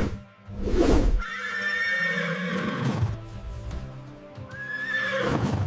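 Horse whinnying: one long whinny, then a shorter one near the end, over background music.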